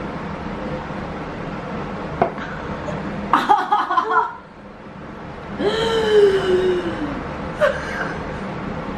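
A woman's disgusted vocal reactions to a foul-tasting digestion shot she has just swallowed: a short gagging burst about three and a half seconds in, then a long drawn-out groan that rises and falls in pitch, over a steady background hum.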